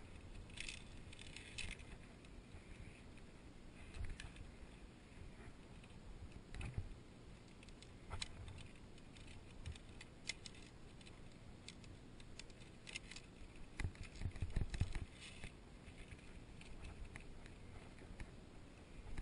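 Via ferrata carabiners clinking and jingling against the steel safety cable and each other as the climber moves along, in scattered bursts: a cluster near the start and several more in the second half, with a few dull knocks.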